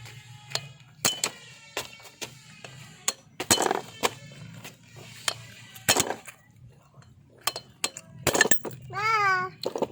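Repeated sharp metal clinks and knocks of tools and small engine parts being handled during a valve-seal job on a Suzuki F6A cylinder head, with a short wavering cry near the end.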